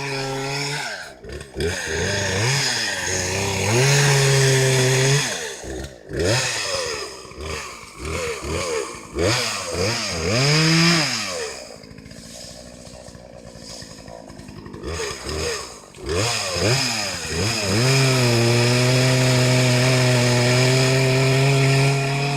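New gasoline chainsaw engine revved again and again, its pitch rising and falling in quick bursts, dropping to a low quiet running for a few seconds midway, then climbing back to a steady high speed near the end; the saw is being warmed up.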